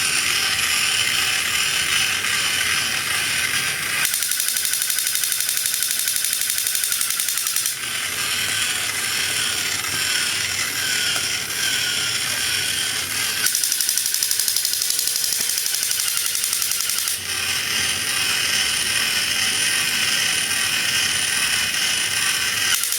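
Fast, even mechanical clicking, its tone changing abruptly several times.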